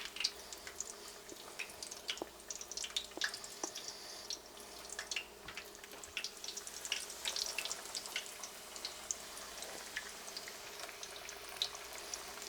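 Breaded walleye pieces deep-frying in hot oil: a faint steady sizzle with irregular crackles and pops.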